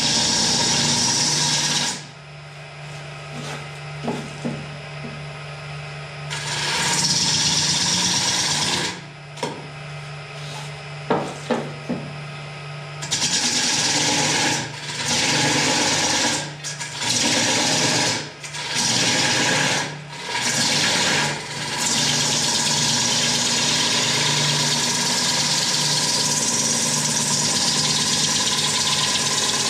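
Wood lathe turning a large wooden bowl, a hand-held turning tool cutting shavings off the spinning wood. The cuts come in stretches broken by pauses where only the lathe's steady motor hum is left, several short cuts in a row midway, then one unbroken cut through the last third.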